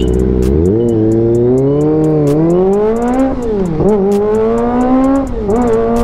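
Kawasaki ZX-25R's 249 cc inline-four, through a full aftermarket AR exhaust system, accelerating hard from a standstill. The revs climb in a rising howl, drop at an upshift nearly four seconds in, climb again and drop at a second upshift near the end.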